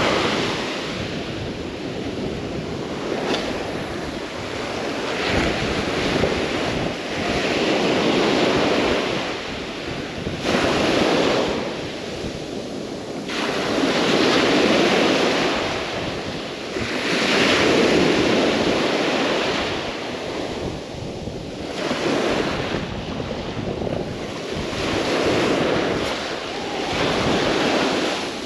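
Ocean surf breaking on a beach, the wash swelling and fading every few seconds, with wind on the microphone.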